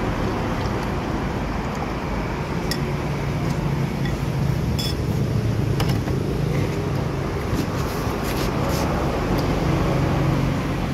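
Road traffic on a highway: trucks and motorbikes going by, a steady rumble of engines and tyres that swells a little in the middle and again near the end, with a few short clicks.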